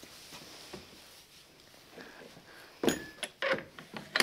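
A few short, sharp knocks and clicks in a stable, after about three seconds of near-quiet.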